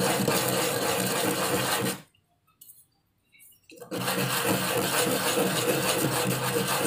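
Small electric sander running with a steady motor hum while a wooden piece is pressed against its pad to round off the edges. It cuts out about two seconds in, then starts again just before four seconds, spinning up quickly.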